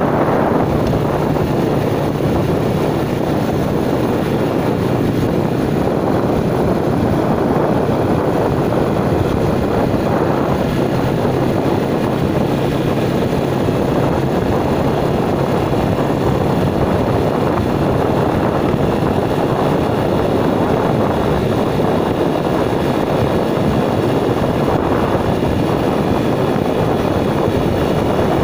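Steady, loud wind rush on the microphone from riding on a motorcycle at road speed, with the motorcycle's engine running underneath.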